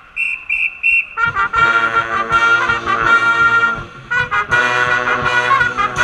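College hockey pep band's brass section playing a loud tune in short, punchy notes, coming in about a second in after a few short high notes.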